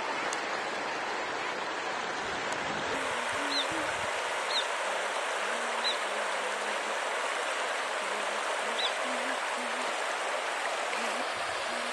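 Shallow river rushing and rippling over stones in a steady wash of water noise, with four short high chirps scattered through the middle.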